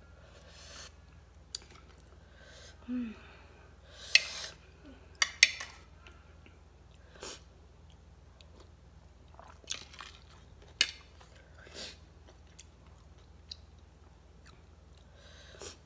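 A person eating shredded mango salad close to the microphone: chewing and crunching, with short sharp clicks scattered throughout, the loudest two about four and five and a half seconds in.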